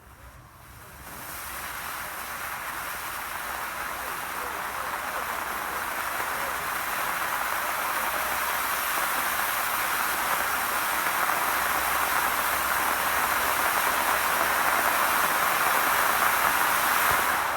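Cone fountain firework spraying sparks: a steady rushing hiss that starts about a second in, grows louder as it burns with good gusto, and cuts off near the end.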